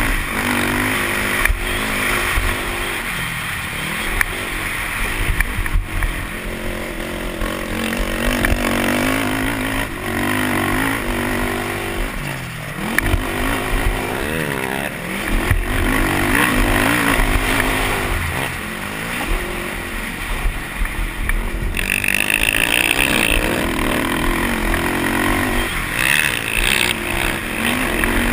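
Racing quad's engine heard from the rider's helmet, revving hard and dropping back again and again as it accelerates and shifts around the track, with knocks and rattles as it runs over rough ground.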